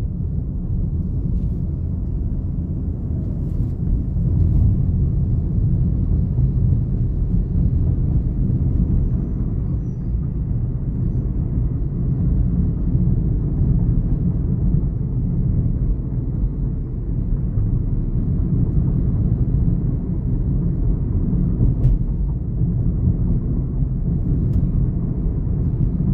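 Steady low rumble of road and tyre noise inside the cabin of a moving Chevrolet Onix turbo, with a few faint clicks.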